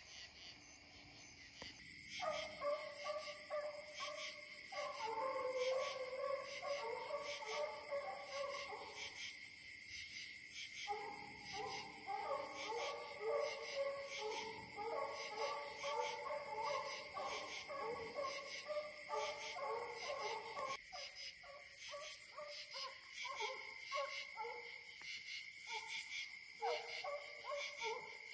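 Hounds baying in the distance as they run a coyote, their repeated calls coming and going over a steady, pulsing chorus of crickets and other night insects. The sound starts about two seconds in.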